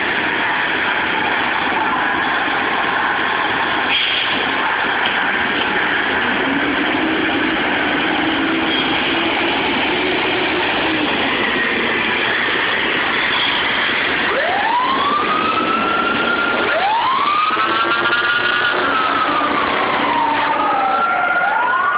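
Fire trucks' diesel engines running loudly as the apparatus pulls out on an emergency call. About two-thirds of the way in a siren starts: wails that climb and hold, then a slow fall and a fresh rise near the end.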